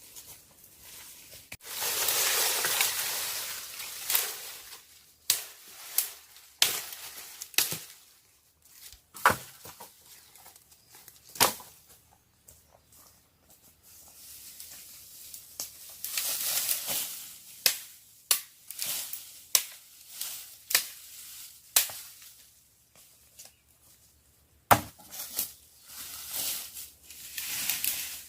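Dry sticks snapping and dry leaves and twigs being crushed and crunched, with irregular sharp cracks and a few longer crunching rustles.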